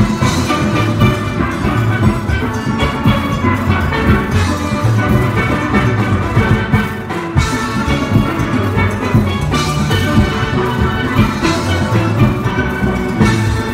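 Steel band playing: many steelpans, from high chrome pans to tall bass pans made from oil drums, struck rapidly together in a continuous piece.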